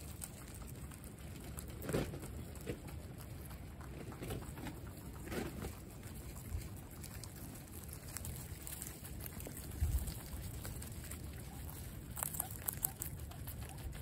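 Guinea pigs munching fresh greens and hay close up, with scattered crisp crunches and rustles, over a steady low rumble of wind on the microphone.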